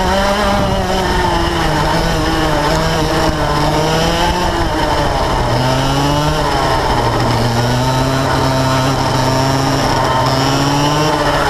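Yamaha 100cc two-stroke kart engine heard onboard at racing speed. Its pitch drops sharply about five and a half seconds in as the revs fall, then climbs slowly as it pulls back up, and drops again right at the end.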